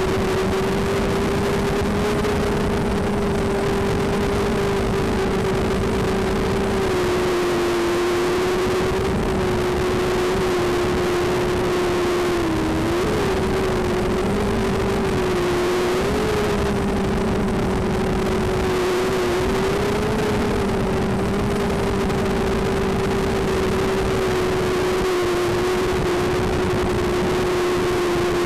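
FPV racing multirotor's electric motors and propellers, heard through its onboard action camera: a steady high whine over a rushing hiss. The pitch dips and wavers a few times about halfway through as the throttle changes.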